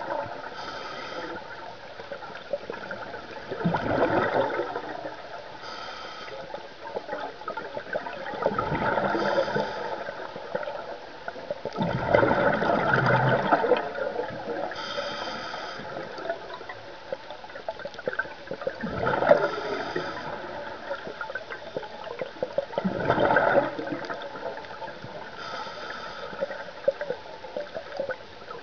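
Scuba diver breathing through a regulator underwater: a hiss on each inhale and a gurgling rush of exhaled bubbles every few seconds.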